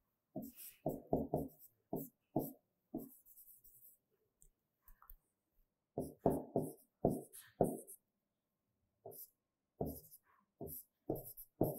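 A man humming short notes under his breath in three brief spells, with faint scratchy writing strokes in between.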